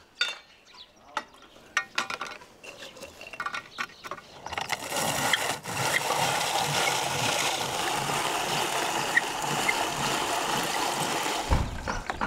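A few light knocks and clicks of things handled on a wooden table, then a hand-cranked rotary drum grater turned steadily, making a continuous rasping noise for about seven seconds that stops about a second before the end.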